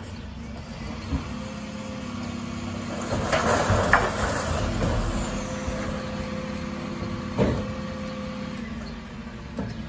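Refuse lorry's diesel engine running while its Terberg OmniDel hydraulic bin lift raises a wheelie bin, with a steady hydraulic whine. About three seconds in, mixed recycling clatters loudly into the hopper as the bin is tipped, and a sharp clunk follows about seven seconds in as the lift comes down.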